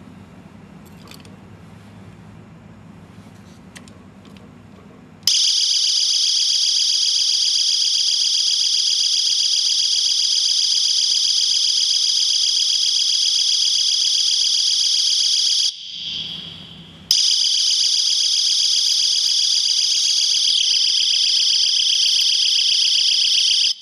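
Motorcycle alarm U-lock's built-in siren, set off by shaking the lock body, sounding a very loud, steady high-pitched electronic alarm that starts suddenly about five seconds in after its delay. It breaks off briefly, sounds again, and stops near the end as the lock is unlocked with its key.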